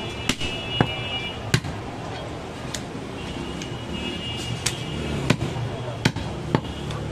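A butcher's cleaver striking a wooden chopping block while cutting goat meat: about eight sharp knocks at an uneven pace, over steady market background noise.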